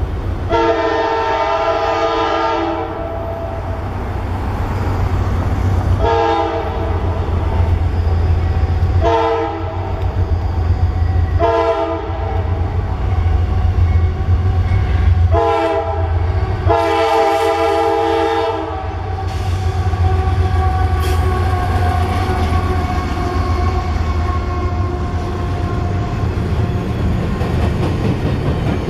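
Freight train locomotive's air horn sounding a series of about six blasts, a long one near the start, shorter ones through the middle and another long one a bit past halfway, over the steady low rumble of the approaching train. In the last part the horn stops and the train rolls on past with a steadier high tone.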